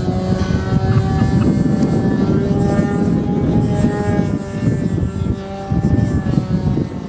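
Radio-controlled model aerobatic plane in flight, its motor and propeller giving a steady drone with small shifts in pitch as it climbs and turns.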